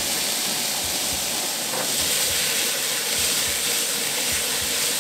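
Marron (freshwater crayfish) meat frying in a very hot pan of shallow vegetable oil, a loud, steady sizzle.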